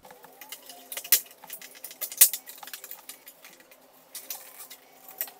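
Plastic lower front panel of a Jaguar S-Type being pulled free by hand from where it is stuck into the bottom of the radiator: a run of clicks and light plastic knocks, the sharpest a little after one second and just after two seconds in.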